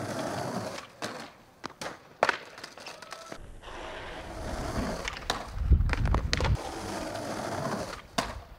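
Skateboard wheels rolling over granite, broken by several sharp clacks of the board striking the stone and a heavy low thump around six seconds in.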